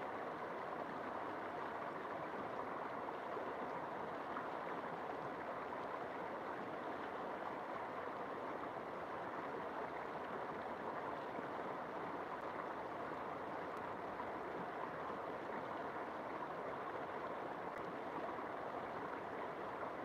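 River water flowing steadily, an even rushing murmur with no breaks.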